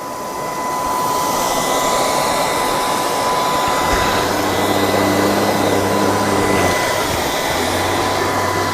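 LG R9 robot vacuum running: a steady rush of suction with a high, even whine. A low hum joins about four seconds in.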